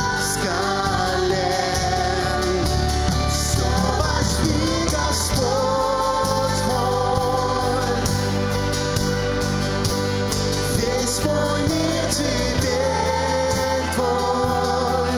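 Live contemporary worship song: voices singing over a band with acoustic guitar, bass guitar and keyboards.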